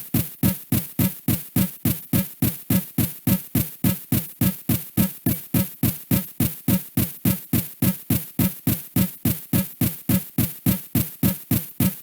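Mock UK emergency alert alarm tone, made on a computer, pulsing on and off steadily at about four pulses a second. Each pulse has a sharp start and a quick fade.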